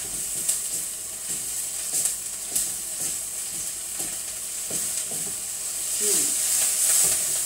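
Curry paste and onions sizzling in hot oil in a wok, stirred with a spatula that scrapes and knocks against the pan about once a second. The sizzle swells near the end.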